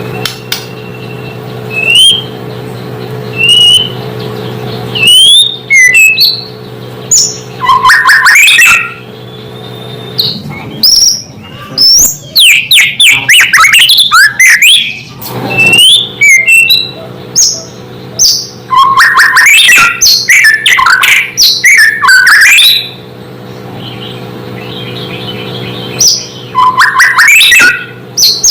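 White-rumped shama (murai batu) in full song: clear rising whistles break into dense runs of rapid, sharp notes several times, with short pauses between. A steady low hum sits beneath the song.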